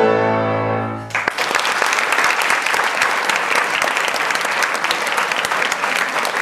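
Final chord of a grand piano ringing out and fading, then audience applause breaking out about a second in and carrying on steadily.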